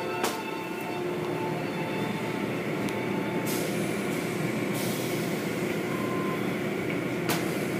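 Automatic car wash tunnel running: a steady mechanical rumble of the brush and curtain machinery with water spraying over a foam-covered car. A brighter hiss of spray swells about three and a half seconds in and eases off a second or so later.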